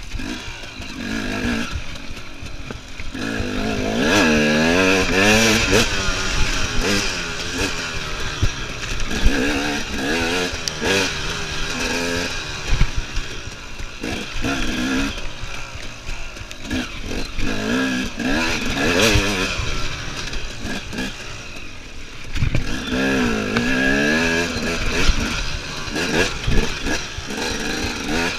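KTM EXC enduro motorcycle being ridden hard: the engine revs up and drops back again and again through gear changes, with frequent knocks and clatter from the bike over rough ground.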